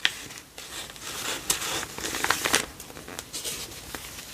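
Paper rustling and crinkling as hands handle a card and turn the pages of a handmade paper journal, with several small sharp paper clicks.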